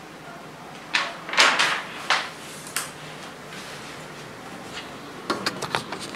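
Handling noises from a sheet of paper on a drawing board being set up: a few short scrapes and knocks about one to two seconds in, then a quick run of clicks and taps near the end, over a steady room hiss.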